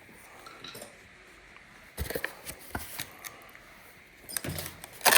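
Dryer control panel and its parts being handled during reassembly: a scatter of sharp clicks and knocks, a cluster about two seconds in and a louder one near the end.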